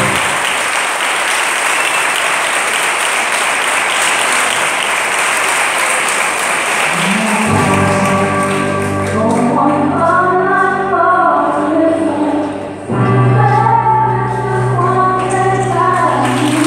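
Audience applauding. About seven seconds in, music starts: a melody over sustained low notes, as the clapping dies away. The music breaks off briefly about thirteen seconds in and then carries on.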